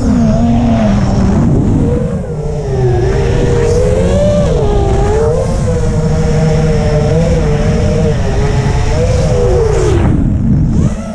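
FPV quadcopter's electric motors whining, heard from the quad's onboard camera, the pitch swooping up and down with the throttle. The pitch drops low near the start and again near the end.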